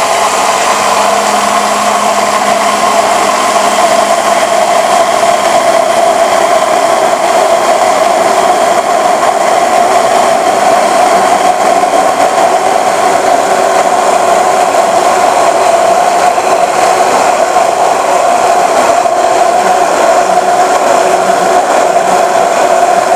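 Hand-held immersion (stick) blender running loudly and steadily with a constant motor whine, held down at the bottom of a tall beaker and whipping egg and refined oil into mayonnaise as the emulsion thickens.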